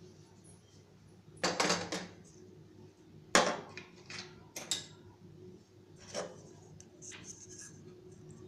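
A ladle knocking and scraping against a pan of milky poha payasam, giving several sharp clinks spread through, the loudest a little past three seconds in.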